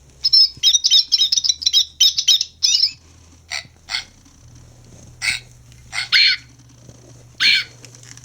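Recorded bird calls from Wild Republic Audubon plush toy birds, played through the toys' small built-in sound boxes. A quick run of high chirps for about three seconds, then several separate harsher calls about a second apart.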